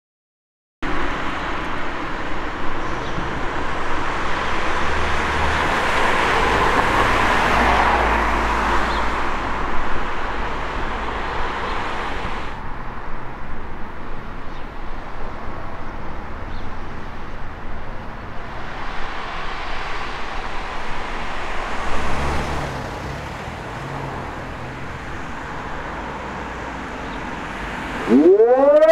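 Road traffic, with vehicles passing about a quarter and about three quarters of the way through. In the last second a Hörmann ECN 600 electronic mast siren starts its fire-alarm test signal, its tone rising steeply.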